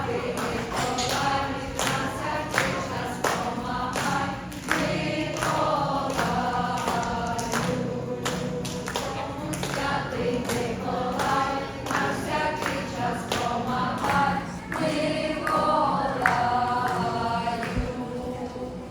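A choir singing a song together, with sustained sung notes throughout.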